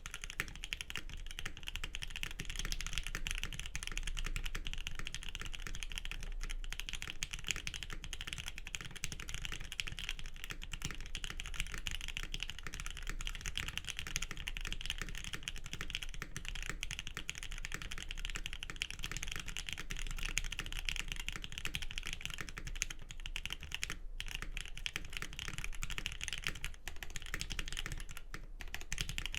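Fast, continuous typing on a Geon Frog TKL custom mechanical keyboard: Lavender switches lubed with Krytox 205g0 on an aluminum plate, under GMK keycaps, giving a dense stream of keystroke clacks with a few brief pauses.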